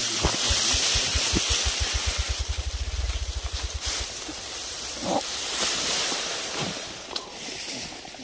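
Steady hiss of dry tall grass rustling and wind on the microphone as people push through the grass, with a run of quick low thumps in the first half that speed up and stop about four seconds in.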